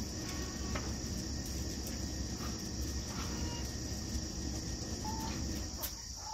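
Steady high insect chirring, like crickets, over a low rushing noise, with a couple of short high chicken calls about five seconds in.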